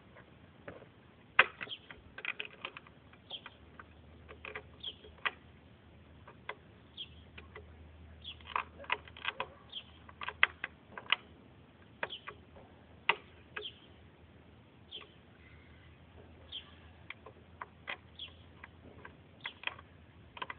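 Irregular sharp clicks and taps as parts are handled and fitted, busiest in the middle, with small birds chirping now and then in the background.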